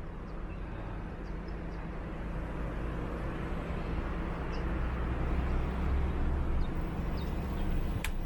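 Heavy wind noise buffeting the camera microphone on a fast electric-bike downhill ride, growing louder as speed builds, with a single sharp click near the end.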